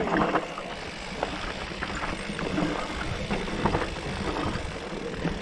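Mountain bike riding a dirt singletrack: tyres rolling over the trail and the bike clattering over bumps, with many short knocks and rattles over a steady rush of wind on the microphone.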